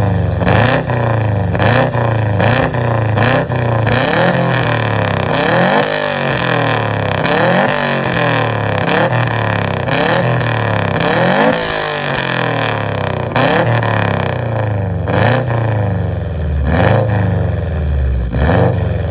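Subaru Impreza WRX STI (GD)'s turbocharged flat-four engine free-revving at a standstill through an aftermarket sport exhaust (downpipe with high-flow catalytic converter, titanium cat-back, carbon tips). It gives repeated quick throttle blips, each rising and falling in pitch, and drops back to idle between them.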